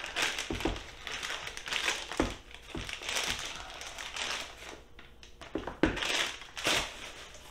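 Packaging of a camera box being opened by hand: crinkling and rustling, with a few sharp knocks.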